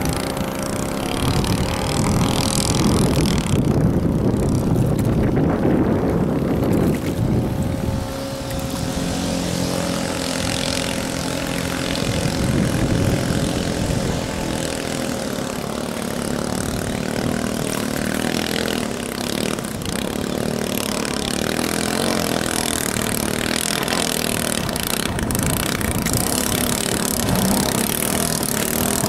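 A 6.5 hp clone single-cylinder four-stroke engine driving a mini power boat, running steadily at speed with the rush of water around the hull. It is somewhat louder for the first several seconds, then settles a little.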